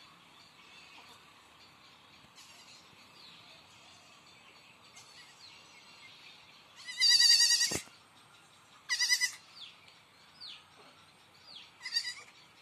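Goat bleating three times: one long, wavering bleat about seven seconds in, then two shorter bleats about two and five seconds later.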